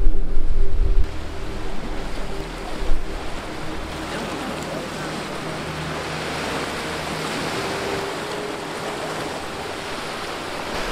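Sea surf washing steadily against a rocky shore, with wind on the microphone. Background music is louder over the first second, then drops away.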